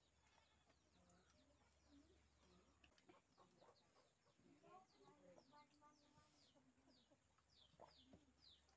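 Very faint chickens in the background: a run of short, high, falling chirps a few times a second, with some lower clucking about halfway through.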